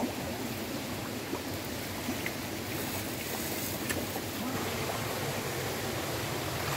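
Water running and splashing steadily over rocks into a pond, with a few faint ticks.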